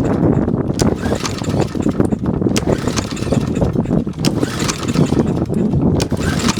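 Small Briggs & Stratton push-mower engine running steadily, with a few short clicks over it.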